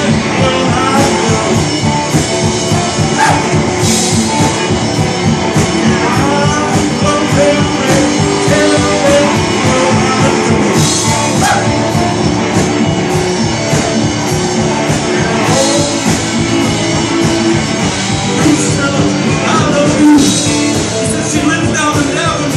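Live band playing rock and roll: strummed acoustic guitar over a drum kit keeping a steady beat.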